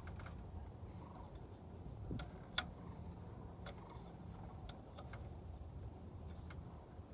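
Faint metallic clicks and taps of a wrench working a brake bleeder screw on a truck, with one sharp click about two and a half seconds in, over a low steady hum and a few short high chirps.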